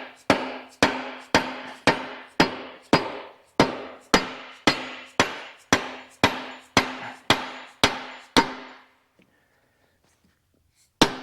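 Steady hammer blows on steel, about two a second, each leaving a ringing note, as the hydraulic thumb is hammered into place on the mini excavator. The blows stop a little past halfway, and a single blow comes near the end.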